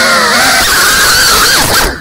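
GEPRC CineLog35 cinewhoop's motors and ducted propellers whining loudly, the pitch rising and falling with the throttle, then cutting out suddenly near the end.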